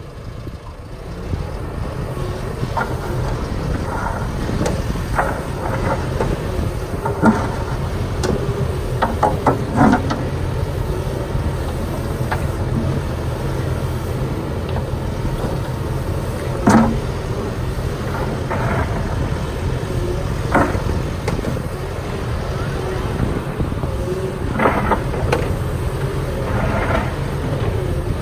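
Volvo EWR150E wheeled excavator's diesel engine running steadily under load as the machine works, with its level rising about a second in. Several sharp knocks and clanks from the bucket and boom are scattered through, the loudest about two-thirds of the way in.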